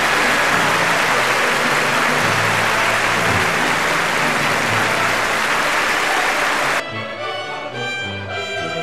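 A small group clapping in applause over orchestral background music. The clapping cuts off abruptly near the end, leaving only the music.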